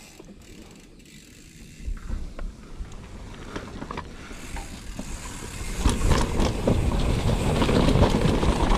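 Mountain bike riding a rough dirt trail: the rear hub's freewheel ratchet clicks while coasting, with tyre and trail noise and knocks. The noise grows much louder about six seconds in.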